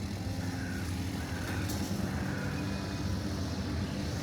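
Steady low rumble of motor traffic, an engine drone with a few faint short high notes over it.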